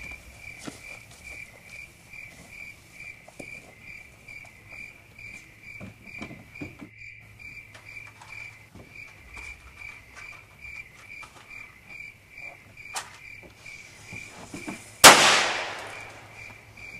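Crickets chirping in a steady, even rhythm, with faint scattered clicks. Near the end comes a single loud crash with a short ringing tail.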